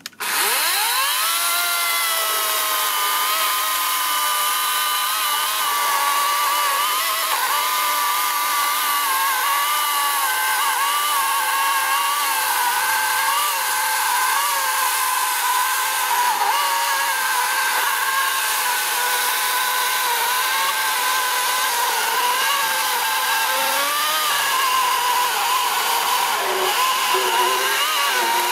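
Einhell GP-LC 36/35 cordless chainsaw, powered by two 18 V batteries, spinning up with a rising whine at the start and then sawing down through a thick log of about 34 cm. The motor runs steadily throughout, its pitch dipping and recovering as the chain bites under load.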